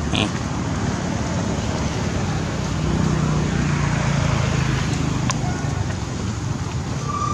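Steady outdoor background noise, with a low hum that swells for about two seconds in the middle, a brief high squeak just after the start and a single sharp click a little past five seconds.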